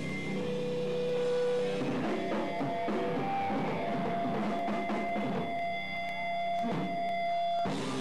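Hardcore/metal band playing live: electric guitars and drum kit, recorded on a camcorder's microphone.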